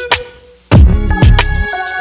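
Background electronic music with a steady drum beat: the beat drops out briefly, then comes back in with heavy bass kicks and sustained notes under a second in.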